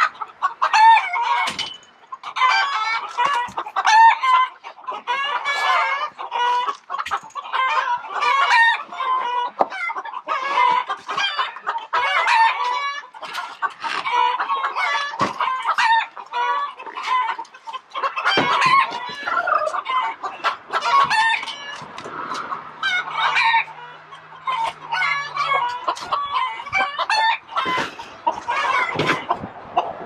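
A flock of chickens clucking continuously in overlapping short calls, with a rooster crowing among them.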